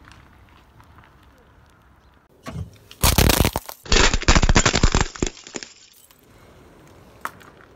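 Car tyre rolling over and crushing brittle objects: a short crunch about two and a half seconds in, then a dense run of loud cracks and pops lasting about two and a half seconds, followed by a few scattered clicks.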